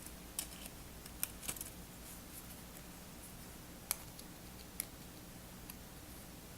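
A few faint, sharp clicks and taps from small phone parts and tools being handled during an iPhone screen repair. The clearest tick comes about four seconds in, with others in the first second and a half and near five seconds.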